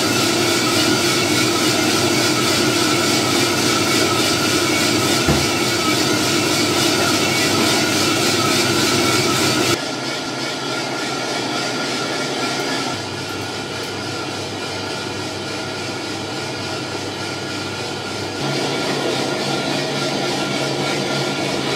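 A drum coffee roaster running with a steady mechanical whir. The noise drops abruptly about ten seconds in and again near thirteen seconds, then rises near eighteen seconds.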